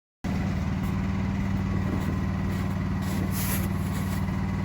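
An engine running steadily at idle, a loud low hum with a rapid even pulse, starting abruptly about a quarter second in.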